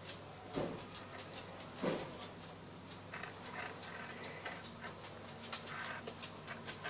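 Faint light clicks and small handling noises, several a second, from a metal crochet hook and a metal split key ring being worked through a crocheted yarn heart.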